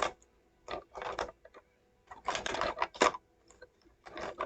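Plastic model kit parts and packaging rattling and crinkling as they are handled, in about four short bursts with pauses between.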